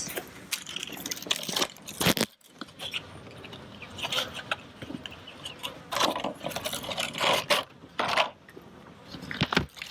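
Irregular clicking, rattling and scraping of handling noise, with a few louder knocks about two seconds in and again between six and eight seconds.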